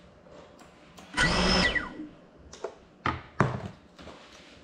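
Brushless motors of a small FPV cinewhoop drone whine briefly at a steady pitch for under a second, then wind down. A few sharp knocks follow.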